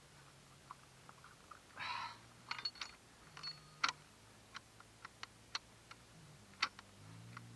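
Faint, scattered clicks and taps with a brief rustle about two seconds in: hands and gloves handling parts around a dirt bike's engine.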